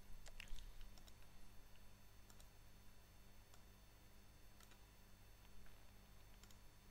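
Near silence: room tone with a low steady hum and a few faint, scattered clicks.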